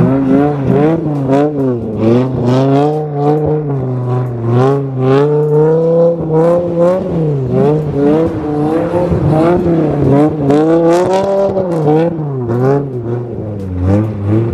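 Dodge Viper's V10 engine revving up and down again and again as the throttle is worked, its rear wheels spinning on snow.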